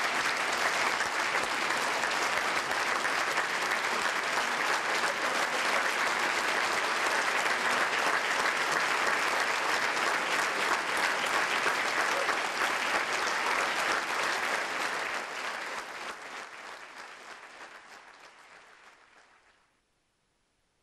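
Audience applauding steadily, a standing ovation with dense clapping; it fades away over the last several seconds into silence.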